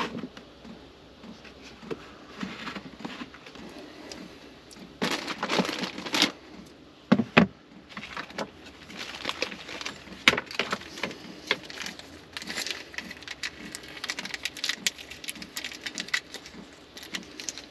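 Small objects being handled and rummaged through: scattered clicks, taps and rustling, with a louder knock about 7 seconds in and a run of quick small ticks through the second half.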